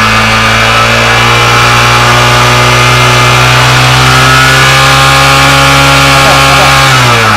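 Honda CG Fan 125's air-cooled single-cylinder four-stroke engine held at raised revs, its pitch creeping slightly upward, then falling back as the throttle is released near the end. It is revved to test the stator and rectifier's charging output.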